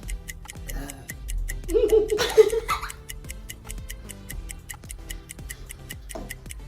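Steady ticking of a countdown timer, about four ticks a second. About two seconds in, a short voice-like sound, a laugh or exclamation, rises over it.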